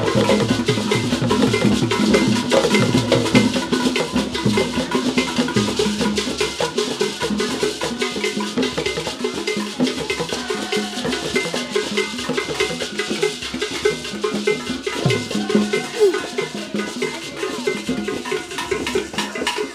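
Traditional Ghanaian hand drums and percussion playing a fast, busy dance rhythm without a break.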